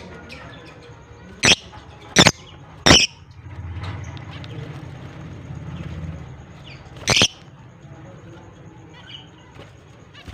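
Lovebirds calling: three loud, shrill calls about two-thirds of a second apart starting a second and a half in, and one more a little after seven seconds, with faint chirping between. A low rumble runs through the middle stretch.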